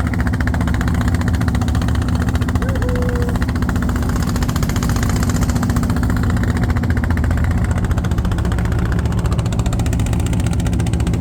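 Boat engine running steadily at an even pitch, a low continuous drone.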